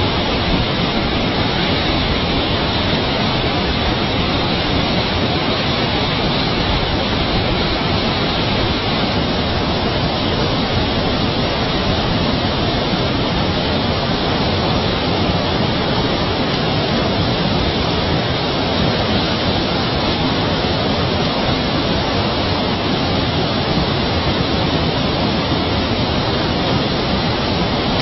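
Water rushing down a spillway, an even, unbroken hiss.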